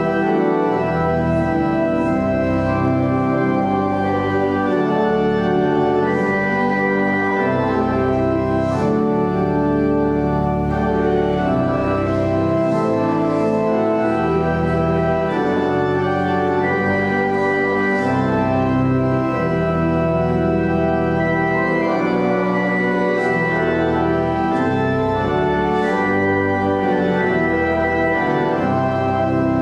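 Church organ playing a slow piece in held chords that change every second or two.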